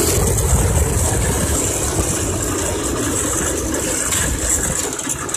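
Predator 212cc single-cylinder four-stroke engine on a minibike running under throttle while being ridden, a rough, steady engine noise.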